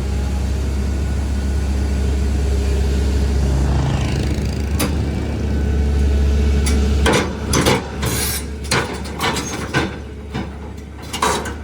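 Heavy vehicle engine running with a steady low rumble, cutting off about seven seconds in. A series of sharp knocks and clanks follows.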